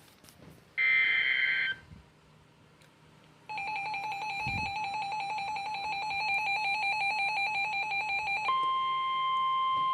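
Emergency Alert System weather radio alert. About a second in comes a brief two-pitch data burst. From about three and a half seconds a fast pulsing electronic alarm beep sounds, and near the end it gives way to the steady single-pitch NOAA Weather Radio warning tone that heralds a tornado warning.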